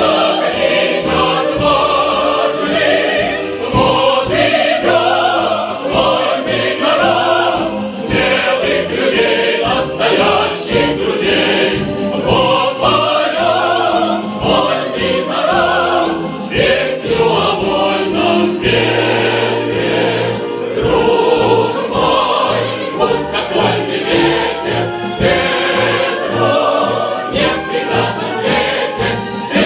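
Choir singing with instrumental accompaniment and a steady beat.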